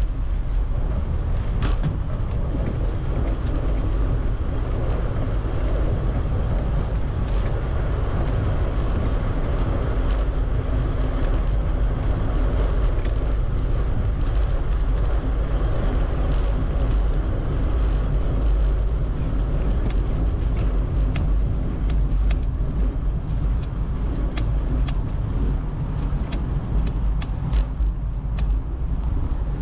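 Wind buffeting a camera microphone on a moving bicycle, with steady road and tyre noise. Many sharp ticks come through it, more often in the second half.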